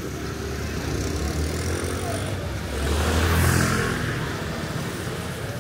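A motor vehicle drives past close by, its engine and tyre noise swelling to a peak about three and a half seconds in and then falling away in pitch, over a steady low traffic rumble.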